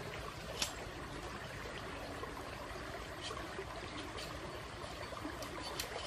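Campfire burning under roasting meat: a steady hiss with a few sharp crackles and pops.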